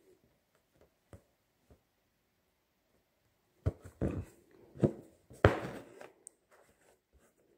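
Embroidery needle and thread pulled through fabric stretched taut in a wooden hoop: a few faint taps, then, about halfway through, a quick run of scratchy pulls as the thread is drawn up through the cloth.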